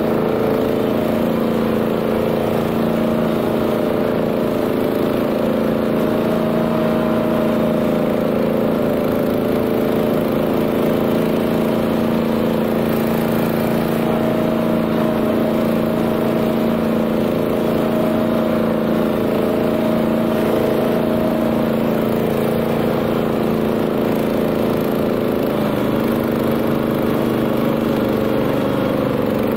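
Honda GX390 single-cylinder engine of a BCS 740 two-wheel tractor running steadily while it drives a flail mower through grass. The engine note shifts slightly near the end.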